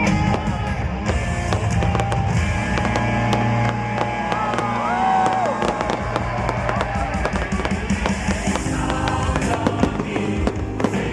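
Fireworks bursting and crackling, with many rapid pops, over a medley of Singapore National Day songs.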